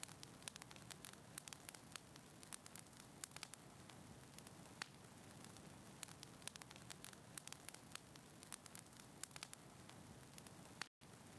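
Faint crackling of a wood fire in a fireplace: a soft steady hiss with many small, irregular pops and snaps. The sound cuts out completely for a moment near the end.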